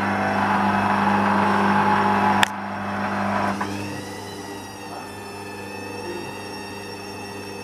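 Hoover Dynamic washing machine on an intermediate spin, the drum and motor running loudly with a steady hum. About two and a half seconds in the sound cuts off suddenly with a click, leaving a quieter motor whine; the spin is held back by the machine's sudslock because the wash is too sudsy.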